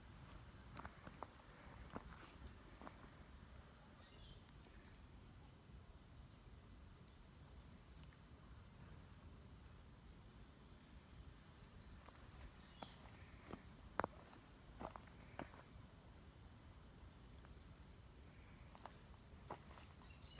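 Steady high-pitched chorus of insects, with a few faint, scattered footfalls on the trail.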